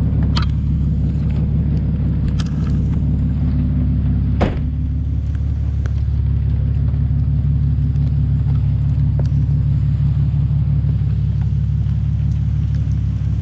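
Car engine and road noise, a steady low rumble, with one sharp click about four and a half seconds in.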